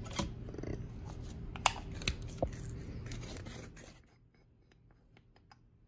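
Close handling noise from hands working cannabis into a metal grinder: scratching and rustling with a few sharp clicks. It cuts off abruptly to near silence about four seconds in.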